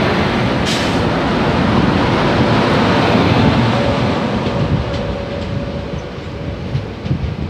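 Loud rumbling rush of a freight train of open hopper wagons passing close alongside on the adjacent track, heard from the open doorway of a moving passenger train, with steel wheels clattering over the rails. The noise eases somewhat in the last couple of seconds.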